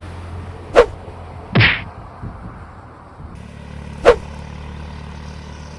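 Two sharp, whack-like impacts about three seconds apart, with a brief noisy burst shortly after the first, over a low steady hum.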